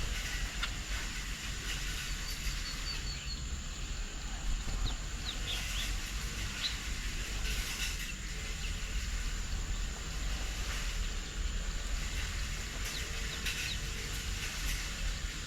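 Outdoor garden ambience: a steady low rumble and a constant high hiss, with scattered short bird chirps and calls.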